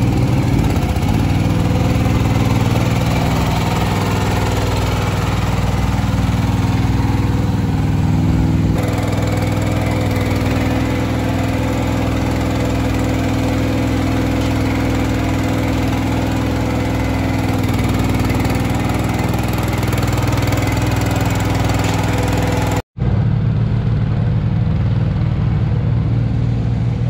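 Small engine of a ride-on calf-feeding cart running steadily, a loud, even hum that changes slightly in tone about nine seconds in and is broken by a momentary dropout near the end.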